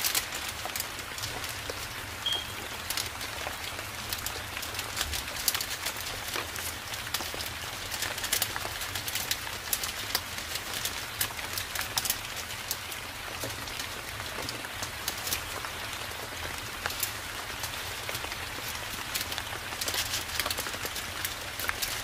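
Forest rain ambience: steady rain with many scattered drop ticks over a low steady rumble.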